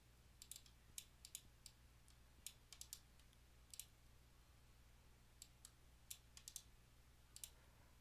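Faint, scattered clicks of computer keyboard keys and a mouse, in small irregular groups, as text is copied and pasted into fields, over a low steady hum.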